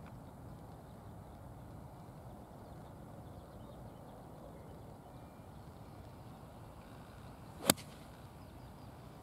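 Golf iron shot from fairway turf: a brief swish of the downswing, then a single sharp crack as the clubhead strikes the ball, about three-quarters of the way through.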